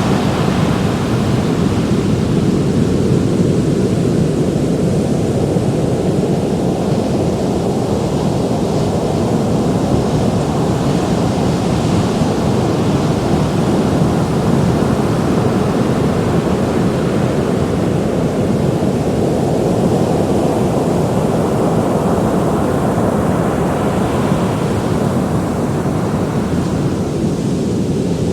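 Ocean surf: a continuous deep rush of waves breaking, slowly swelling and easing in brightness.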